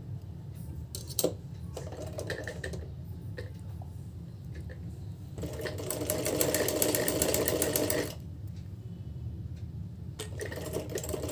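Sewing machine stitching down a folded fabric edge in two runs of fast, even rattling: one lasting about two and a half seconds from around the middle, and another starting near the end. Before the first run there are only a few soft clicks and fabric rustles as the piece is positioned under the foot.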